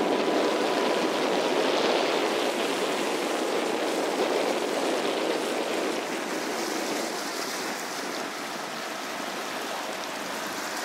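Water rushing and splashing past the hull of a moving dinghy, a steady rush that eases off a little about six seconds in.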